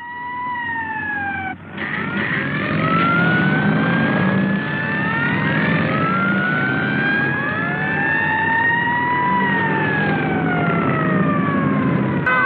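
Several vehicle sirens wailing at once, their slow rising and falling tones overlapping at different pitches over a low engine rumble. A lone falling siren tone opens and is cut off abruptly about a second and a half in, when the full chorus of sirens starts.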